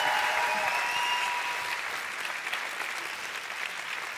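Studio audience applauding, the clapping gradually dying away.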